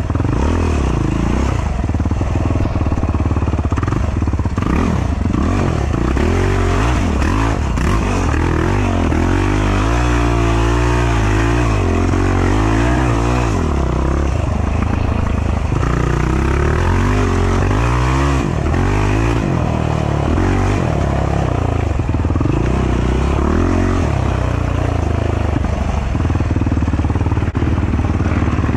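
Racing ATV engine running hard and unevenly, revving up and falling back again and again as the throttle is worked at low speed through a rutted, muddy trail.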